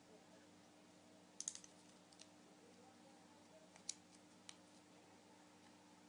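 Near silence with a low steady hum, broken by a few faint sharp clicks: a quick cluster about a second and a half in, then single clicks near two, four and four and a half seconds.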